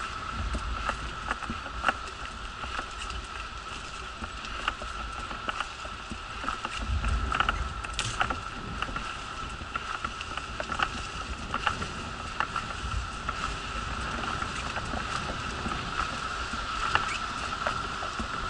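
Wheelchair rolling along a paved path: a steady high whine runs throughout, with frequent small clicks and rattles from the wheels and frame. Wind rumbles on the microphone at the start and again about seven seconds in.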